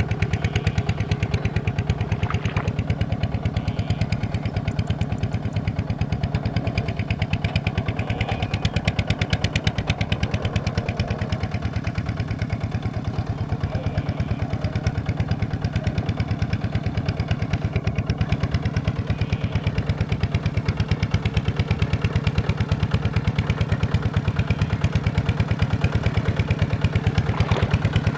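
Tractor diesel engine running steadily at an even idle, each firing stroke heard in a rapid, regular beat.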